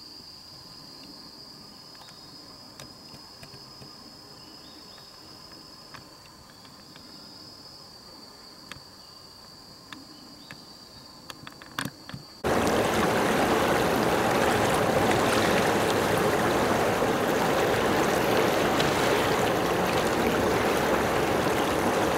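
Faint background hum with a steady high-pitched whine and a few soft clicks. About twelve seconds in it cuts abruptly to a loud, steady rush of wind and waves.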